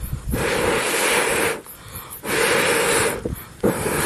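Someone blowing hard on a campfire in long breaths: three blasts of rushing air, each a second or more long, with short pauses for breath between them.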